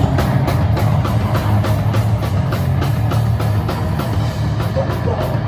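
A rock band playing loud and live: drums keep a steady beat of about four hits a second over a heavy sustained low-end drone of bass and guitar.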